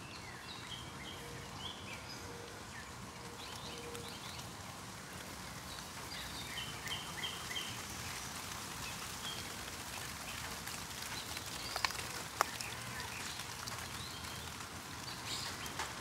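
Light rain falling on a pond, an even hiss, with birds chirping in short repeated notes, a quick run of them about seven seconds in. Two sharp ticks about twelve seconds in.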